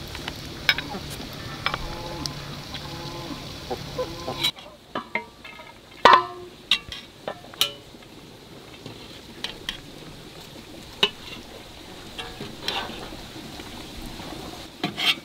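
A metal ladle scraping and clinking against a large pot as steamed rice is scooped out and served onto a platter. The sharp clinks start about four and a half seconds in, and the loudest comes about six seconds in, ringing briefly.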